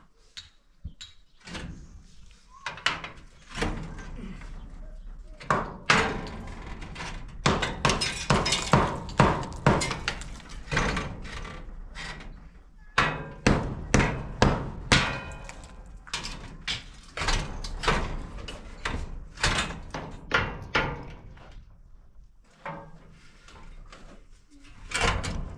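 Hammering: repeated sharp knocks, in uneven runs of several blows a second, with short pauses between runs.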